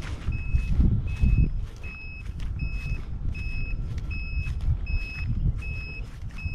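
A small electronic beeper sounding short, high, single-pitch beeps at a steady pace, about four every three seconds, with wind rumbling on the microphone.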